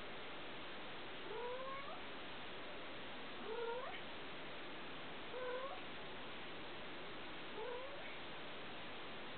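A young kitten mewing four times, about two seconds apart, each short mew rising in pitch, over a steady background hiss.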